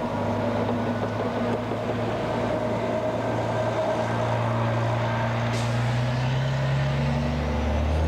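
Coach bus's diesel engine running steadily close by, a low hum that deepens slightly near the end.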